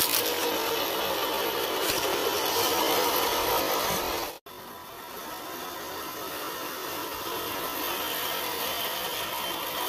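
Electric motor and gearbox of a 1/10-scale RC rock crawler whining steadily as it drives. The sound cuts out abruptly about halfway through, then comes back quieter and gradually builds again.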